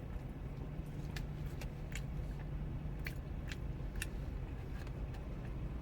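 Close-up chewing and biting of barbecued rib tips, with short sharp mouth clicks about every half second over a steady low hum.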